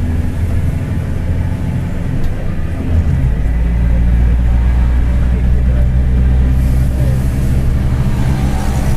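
Mercedes-Benz OF-1721 BlueTec 5 city bus's four-cylinder diesel running under way, with the low growl of its driveshaft (cardan). About three seconds in the engine note changes and gets louder.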